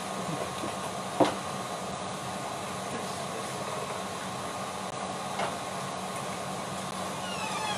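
Steady electrical hiss and hum from a sound system, with a sharp knock about a second in and a softer one about five seconds in as a microphone cable is handled. Faint wavering tones come in near the end.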